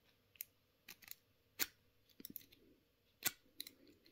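Irregular small metallic clicks and taps of a lock pick and tension wrench working inside a padlock, with two sharper clicks, one about a second and a half in and one a little past three seconds.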